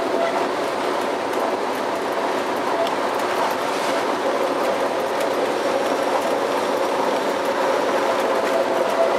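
An NS class 1700 electric locomotive running along the track, heard from inside the driver's cab: steady rolling noise of wheels on rail with a steady whine.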